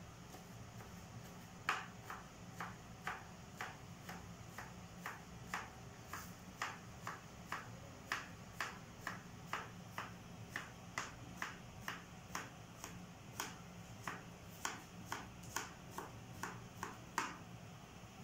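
A kitchen knife slicing vegetables on a cutting board: regular light chops, about two a second, starting about two seconds in and stopping just before the end.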